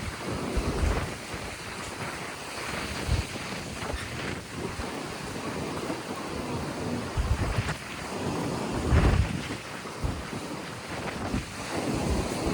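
Mediterranean surf breaking and washing on the shore, a steady wash of noise, with wind buffeting the microphone in low rumbling gusts several times.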